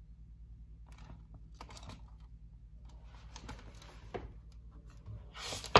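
A picture book being handled as it is held up and lowered: a few soft taps and paper rustles, then a much louder rustle just before the end. A low steady hum runs underneath.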